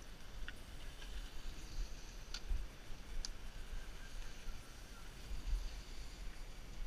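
Skis hissing as they slide over groomed snow, with wind buffeting the microphone in a low, pulsing rumble. Three sharp clicks come in the first half.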